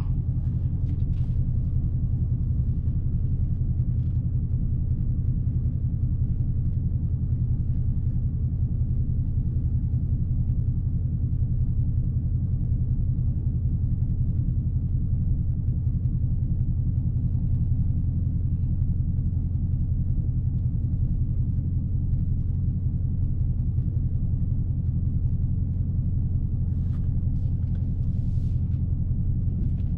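Dodge Challenger Scat Pack's 6.4-litre (392) HEMI V8 idling steadily with a low, even note and no revving.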